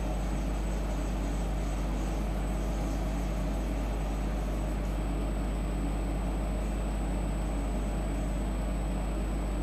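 Steady low hum of the Syil X5 Pro CNC milling machine, running idle while its head is jogged with the handwheel pendant. It is even and unchanging, with no cutting or impacts.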